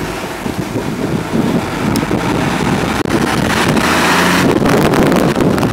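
Star fire engine driving past close by, its engine running and growing louder over the first few seconds as it passes. It is on a non-emergency run, with no siren sounding, and wind buffets the microphone.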